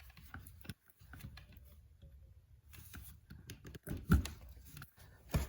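Faint scattered clicks and handling noises of a hand tool stripping insulation from electrical wire, with a sharper snap about four seconds in and another just before the end.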